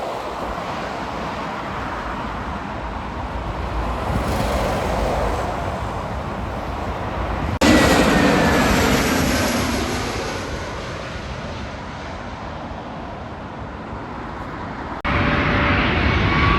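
Jet airliner engine noise, a broad rush that swells and fades and breaks off abruptly twice as the recording jumps. After the second jump a faint engine whine rides over the rush.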